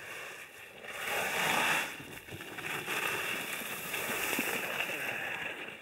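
Skis scraping and hissing on hard-packed snow as a skier carves turns close by, loudest about a second in.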